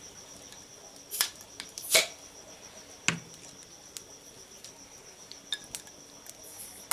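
A few scattered sharp clinks and taps of hard objects being handled, the loudest about one and two seconds in, over a faint steady high-pitched insect trill.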